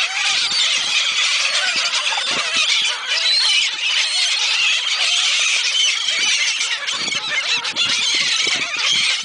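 A flock of seagulls calling over one another: a loud, unbroken chorus of high squealing cries.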